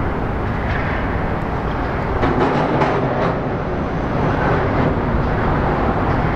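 Distant high-speed jetfoil running foilborne on its hydrofoils across the water: a steady rumbling noise with no distinct engine tone.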